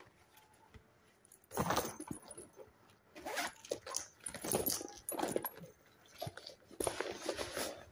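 A new handbag being handled while its short metal chain strap is fitted: the chain jingles and the bag's material rustles in irregular bursts, starting about a second and a half in.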